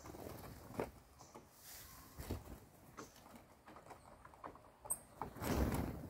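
Small birds, mostly tanagers, hopping and pecking on a corrugated fibre-cement roof, giving scattered light taps and knocks. Near the end comes a burst of wingbeats as the flock flushes and flies off.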